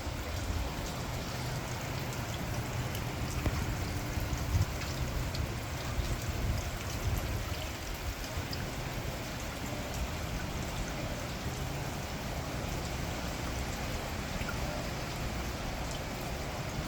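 Steady rain pouring down in a severe thunderstorm, with fine scattered drop ticks and a low rumble underneath.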